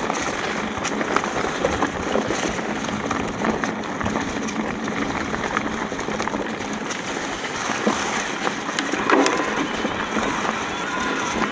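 Mountain bike rolling downhill over a rough, stony trail: tyres crunching on loose rock, with a dense rattle of small clicks and knocks from the bike.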